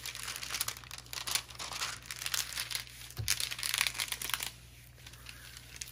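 Clear plastic cover film on a diamond painting canvas crinkling in irregular crackles as a hand pulls it back from the sticky canvas and smooths it down. A soft thump comes about three seconds in, and the crinkling dies down a second or so before the end.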